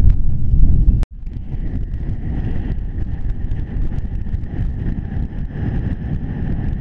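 Wind buffeting the camera microphone: heavy and gusty for the first second, then cut off abruptly and followed by a steadier, quieter wind rush.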